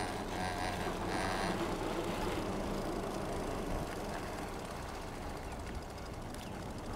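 Super73 RX electric bike riding slowly on pavement: a steady low hum from the motor and fat tyres, with wind noise on the microphone.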